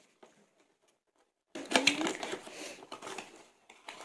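Cardboard and paper perfume packaging being handled and opened by hand: crackling, crinkling and scraping of card. It starts about a second and a half in after a near-quiet start and comes in spurts.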